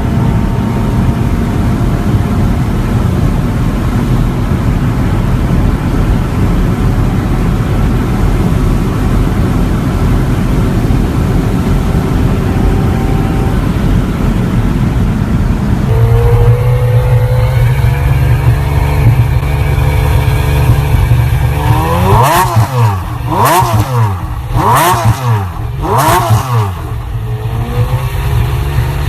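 Supercar engine running steadily, then, after a change in the sound about halfway through, idling and revved four times in quick blips, each rising and falling in pitch, before settling back to idle.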